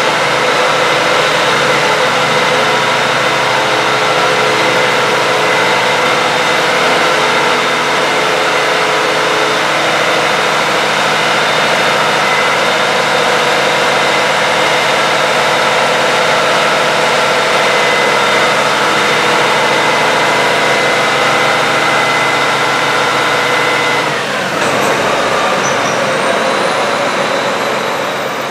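John Deere 8RX 370 four-track tractor's diesel engine running at a steady speed, a constant engine note with several whining tones over it. About 24 seconds in the pitch falls sharply as the engine slows down.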